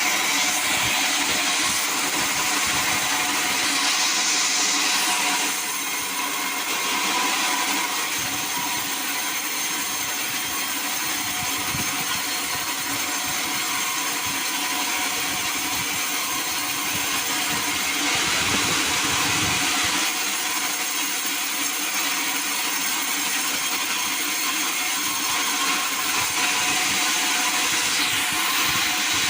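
Sawmill saw running and cutting through wood, a steady mechanical noise with small rises and dips in level.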